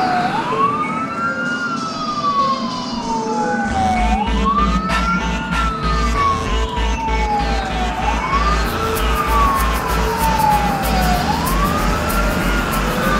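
Emergency vehicle siren wailing, each cycle rising quickly in pitch and falling slowly, repeating about every four seconds. A low rumble joins in about four seconds in.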